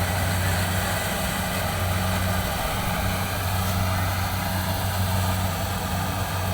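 Combine harvester's diesel engine running steadily with a low, even hum.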